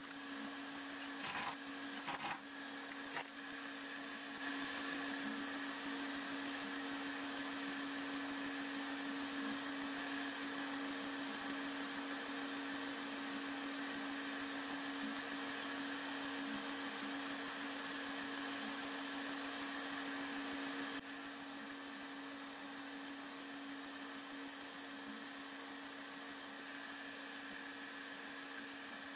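A steady electric motor whir with a constant low drone. It drops a little in level about two-thirds of the way through, and there are a few light clicks near the start.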